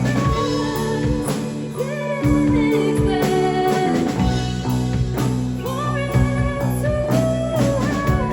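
Rock band playing a song: guitar lines over a steady bass and drums, with a singing voice.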